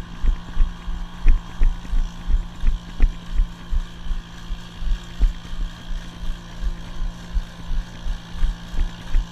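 Engine of a Boston Dynamics LS3 robotic mule running with a steady drone as it walks ahead on a dirt trail, with regular low thumps about three a second.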